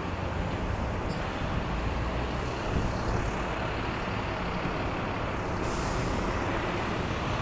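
City street traffic: a steady rumble of engines and tyres, with a short hiss about six seconds in.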